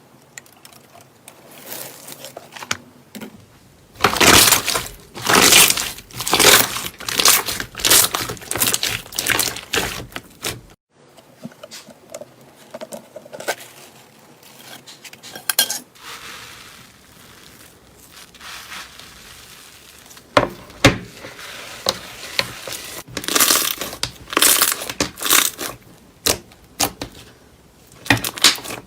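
Slime being squeezed and pressed by hand, crackling and crunching in bursts of about one a second. A quieter, softer stretch comes in the middle, and the crackling bursts return near the end.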